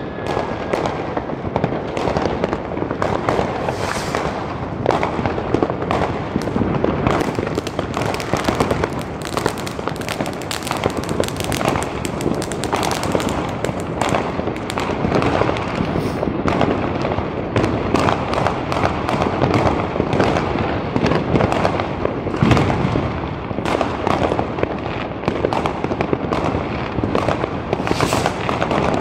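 Fireworks and firecrackers going off all around in a dense, unbroken run of sharp bangs.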